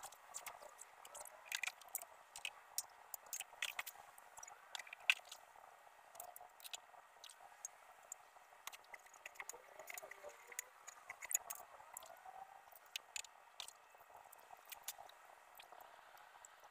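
Faint, scattered small clicks, taps and rustles: an aluminium step ladder being climbed and a canvas cover being handled.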